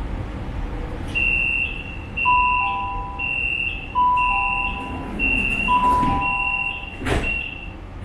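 Metro door-closing warning: a run of high electronic beeps about one a second, with a lower falling two-note chime sounding three times over them, then the doors knock shut about seven seconds in.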